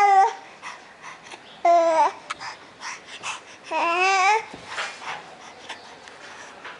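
Eight-month-old baby babbling: three loud, drawn-out high-pitched vocal sounds about two seconds apart, with softer breathy noises in between.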